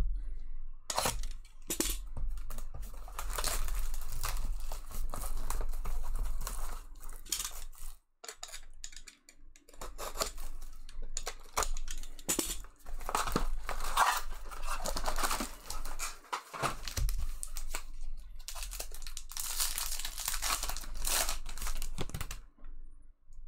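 Plastic and foil wrapping being torn and crinkled by hand as a trading card box and its packs are opened, with cardboard and cards rustling. The crinkling comes in irregular spells with a few short pauses.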